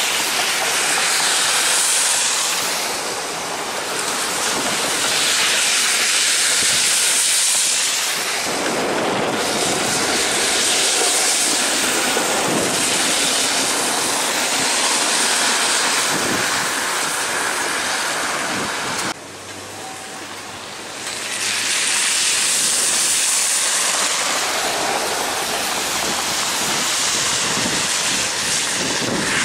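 Traffic on a wet, slushy road: car tyres hiss past as a Flexity Outlook streetcar runs by on its rails. The noise swells and fades as vehicles pass, drops sharply about two-thirds of the way through, then builds again.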